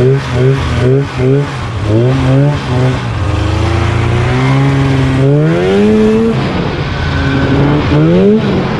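A 1992 Polaris Indy Trail Deluxe's 488cc fan-cooled two-stroke twin engine revving under load as the sled is ridden. The engine note blips up and down quickly for the first few seconds, holds steadier, then climbs in a long rev about five seconds in and drops back. It climbs again near the end.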